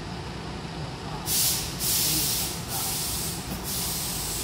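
Hankyu commuter train standing at a platform with its doors open: several short hisses of released compressed air from the train's pneumatic system, over a steady low hum of the idling train.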